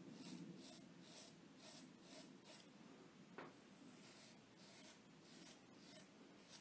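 Cichy Custom Knives straight razor scraping through lathered stubble on the neck in short, faint strokes, about two a second.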